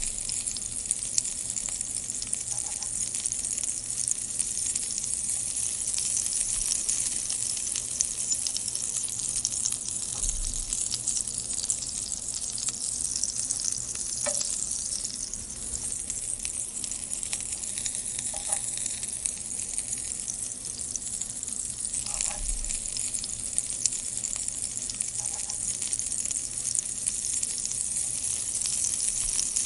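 Sliced green chillies frying in a non-stick pan, a steady crackling sizzle. A wooden spatula scrapes and knocks against the pan now and then as they are stirred.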